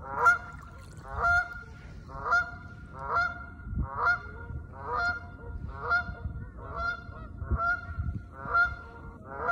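Geese honking, with about one call every second.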